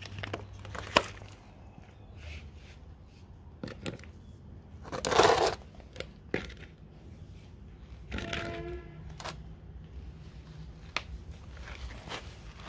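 Hands handling a plastic flower pot and loose potting soil: scattered sharp taps and knocks, a louder rustling scrape of soil about five seconds in, and a brief squeak a little after eight seconds.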